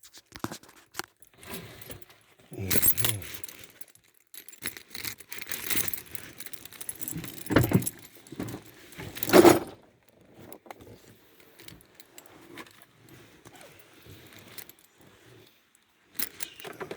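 Irregular clinking and rustling handling noise in short bursts. The loudest bursts come about three, seven and a half and nine and a half seconds in, with only faint scattered clicks after about ten seconds.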